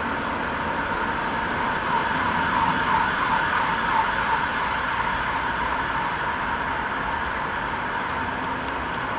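Steady outdoor background noise, a hiss and hum that swells slightly for a couple of seconds about two seconds in.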